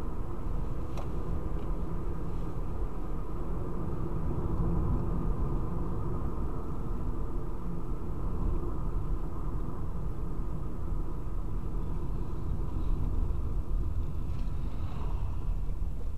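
Steady road and engine rumble of a car driving along, heard from inside the cabin. A faint tick about a second in.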